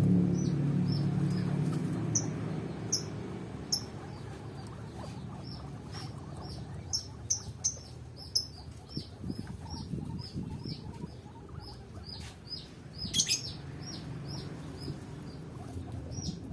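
Small birds chirping: a steady run of short, high, falling chirps, about two a second, growing denser after the first few seconds, with a few sharp clicks and a low hum that fades out over the first few seconds.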